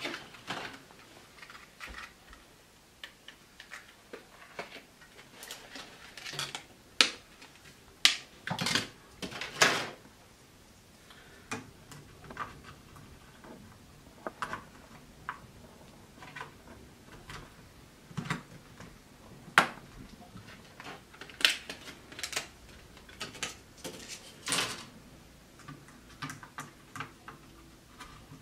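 Irregular clicks, taps and knocks of computer parts being handled as RAM modules are fitted into motherboard slots, the slot latches snapping shut.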